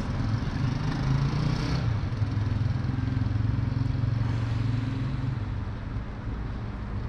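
A motor engine running steadily with a low hum, dipping slightly in pitch about two seconds in.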